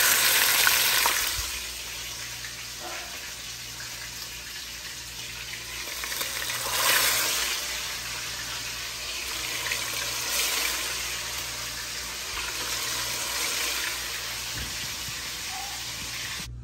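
Hot oil with caramelized sugar sizzling in a pot, the browning stage of Belizean brown stew chicken. The sizzle is loudest in the first second or so and swells again several times as pieces of seasoned chicken go in.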